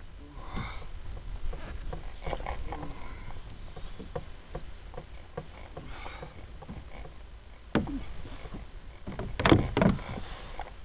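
Water lapping against a plastic kayak hull with a low rumble of wind on the microphone, a run of light, evenly spaced ticks through the middle, and a couple of louder knocks and splashes near the end.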